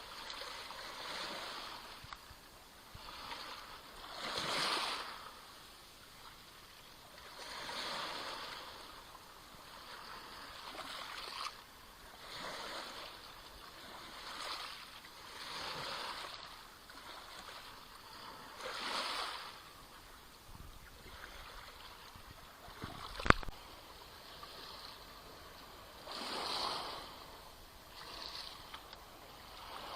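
Small sea waves splashing and lapping on the shore in repeated swells, one every two to three seconds. A single sharp click stands out about twenty-three seconds in.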